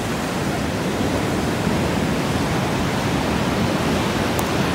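Steady rushing of ocean surf washing over the rocks of the cove, an even noise with no calls or voices in it.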